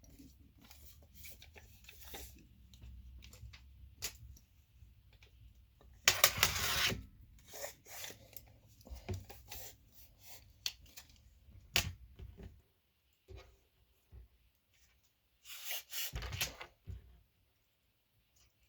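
Leather shoelaces and leather pieces being handled: intermittent rubbing and rustling with scattered light clicks. Two louder rustles come about six seconds in and again near sixteen seconds. A low background hum stops about two-thirds of the way through.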